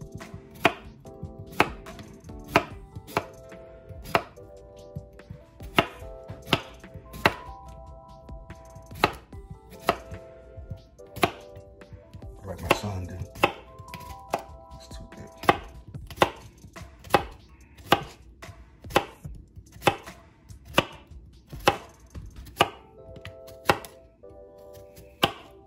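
Chef's knife slicing a cucumber into thin rounds on a plastic cutting board: a sharp tap of the blade meeting the board about once a second, at an even pace.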